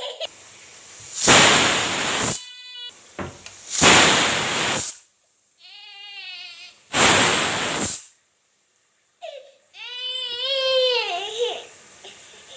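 A pressure cooker whistle lets off steam in three loud hisses, each about a second long. Between them come two wavering, cry-like wails that rise and fall in pitch.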